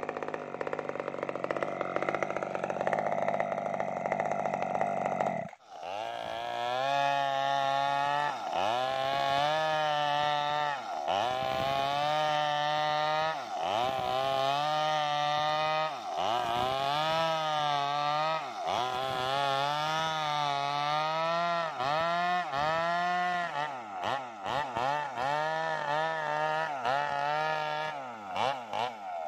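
Maestro mini chainsaw's small two-stroke petrol engine cutting lengthwise through a sengon log. It runs steadily under load, breaks off briefly about five seconds in, then its pitch rises and falls about every two seconds as the bar works along the cut, the swings coming quicker near the end.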